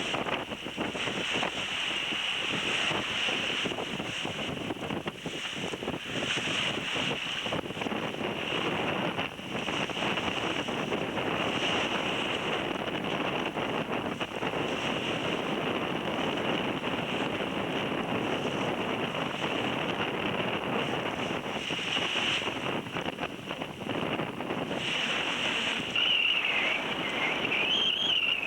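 Wind buffeting the microphone over the steady rush of sea and waves around a sailboat under way. A wavering high whistle comes in near the end.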